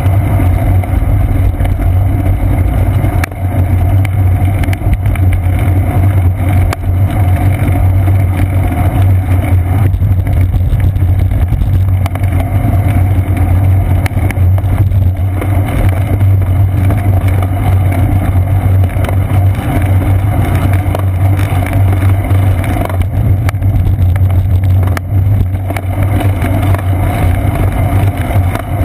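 Steady, loud low rumble of wind buffeting and road vibration picked up by a seat-post-mounted GoPro Hero 2 on a moving bicycle, with a few brief clicks.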